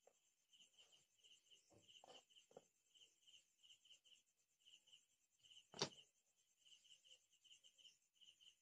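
Near silence, with faint high chirps repeating steadily several times a second. Soft handling rustles, and about six seconds in a single sharp knock as the ruler is set down on the worktable.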